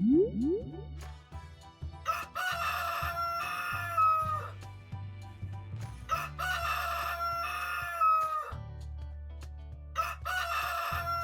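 Rooster crowing cock-a-doodle-doo, two full crows a few seconds apart and a third starting near the end, each long call dropping in pitch as it ends.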